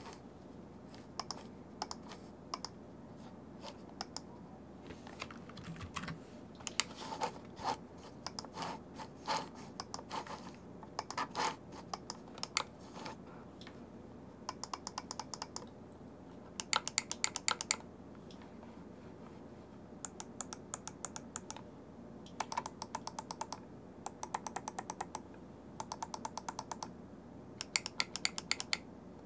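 Ploopy Classic trackball's buttons and scroll wheel clicking: scattered single clicks at first, then quick runs of about ten ticks each with short pauses between.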